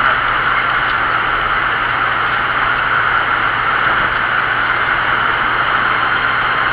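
Steady road and wind noise of a moving vehicle: an even rushing hiss with a constant low hum underneath, unchanging throughout.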